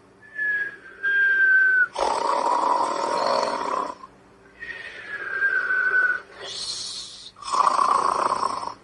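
Cartoon-style snoring: a noisy snore alternating with a whistled breath that falls slightly in pitch, twice over, with a short hiss between.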